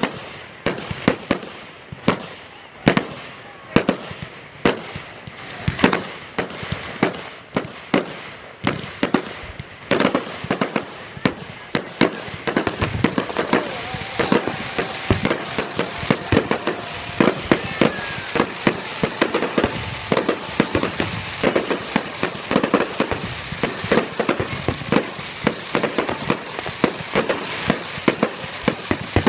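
Fireworks going off: sharp bangs about every half second to a second, thickening about twelve seconds in into a dense, continuous rattle of reports.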